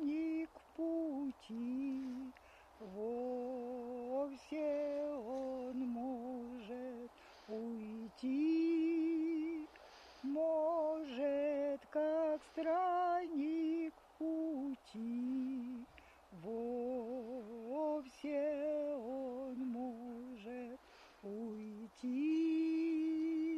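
A woman's voice sings the slow melody of a Russian spiritual song, holding long notes with vibrato and pausing briefly between phrases.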